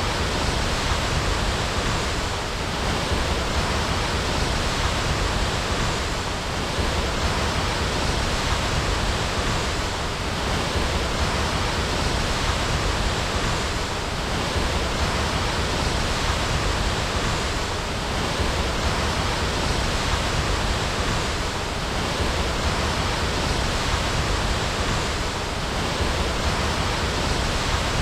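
Waterfall: water falling and rushing in a dense, steady roar that does not change.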